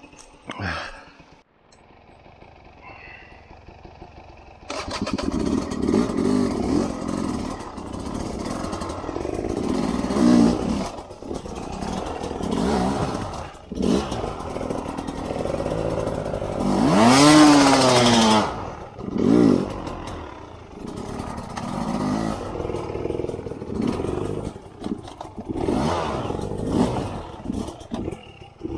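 Sherco 250 SER two-stroke enduro engine comes in suddenly about five seconds in, then runs with repeated throttle blips, with one long rev rising and falling about two-thirds of the way through.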